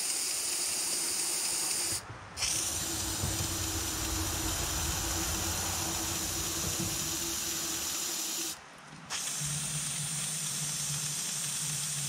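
Aerosol can of engine storage spray hissing steadily as it is sprayed into the engine's open spark plug holes, with two short breaks where the nozzle is let go, about two seconds in and again about nine seconds in.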